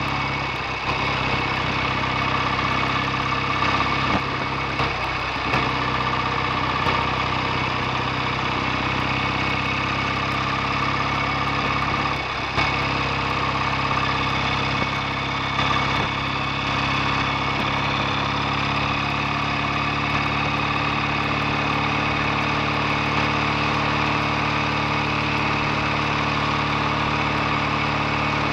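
BSA A65 650 cc parallel-twin engine running steadily at an even speed, its note almost unchanged, with a small dip about twelve seconds in and a slight change in pitch around two-thirds of the way through.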